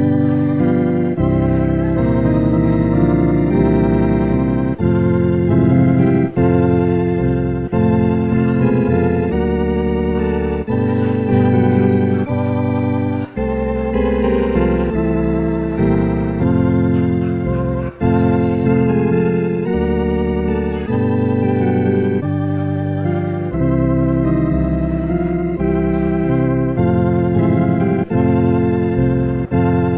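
Organ playing held chords over a steady low bass, the chords changing every second or two.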